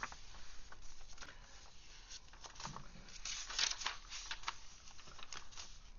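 Paper pages and tucked-in tags of a handmade junk journal being turned and handled, giving irregular rustles and crinkles, busiest a little past the middle.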